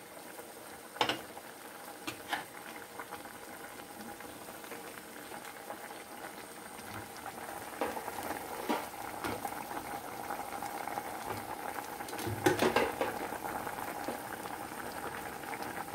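Diced potatoes simmering in a shallow, red-pepper-seasoned broth in an aluminium pot, a steady bubbling and sizzling as the liquid cooks down, getting louder from about halfway. A few sharp clicks or pops come through, the loudest cluster about three-quarters of the way in.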